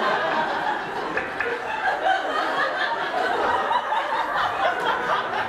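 An audience laughing and chattering, many voices overlapping in a steady hubbub.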